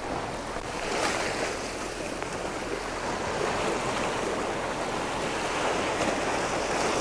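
Sea waves washing and breaking against shoreline rocks: a steady rushing wash that swells a little about a second in.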